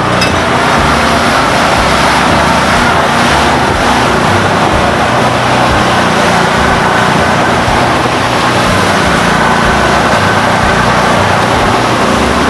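Utility vehicle engine running steadily while driving through flooded trail water, with constant splashing and sloshing of water around the wheels.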